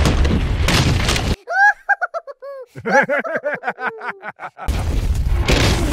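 Explosion sound effect of an erupting toy volcano: a loud, rumbling blast that cuts off suddenly about a second and a half in. Then a quick run of high, squeaky, rising-and-falling chirps for about three seconds, before the rumbling blast comes back near the end.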